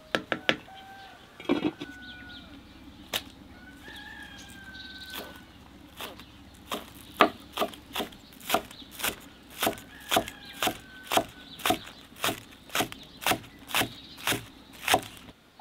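Kitchen knife chopping green onions on a wooden log cutting board. A few separate knocks come first, then a steady chopping of about two strokes a second from about six seconds in.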